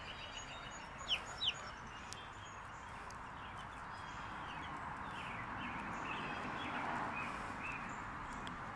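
Baby chicks peeping in short, high chirps, two of them louder and sharper about a second in, over a steady outdoor background noise.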